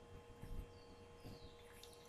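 Near silence: room tone with a steady faint electrical hum, a soft low bump about half a second in, and a faint high chirp.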